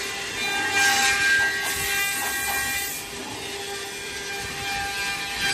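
A CNC router spindle whines at a steady pitch while its cutter trims the excess flange from a vacuum-formed plastic suitcase shell. A rougher, louder cutting noise rides on the whine for the first three seconds, then eases off as the head moves on.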